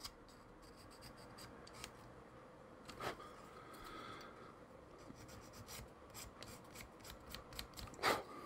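Plastic miniature parts being worked by hand at a hobby desk: faint scraping and small handling clicks, with a sharp snip about three seconds in and a louder one near the end.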